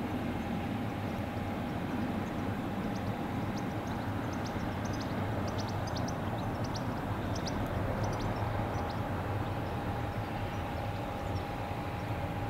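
Boeing 737 jet engines running steadily as the airliner rolls out along the runway after touchdown, a low rumble with a steady whine. Short high bird chirps are scattered through the middle.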